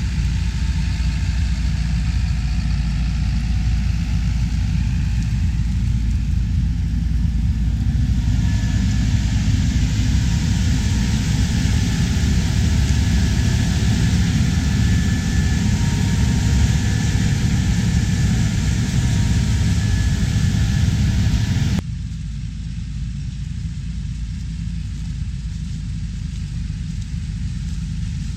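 Engine of heavy harvest machinery running steadily, a deep rumble with a hiss that thickens partway through. The sound drops suddenly in level near the end.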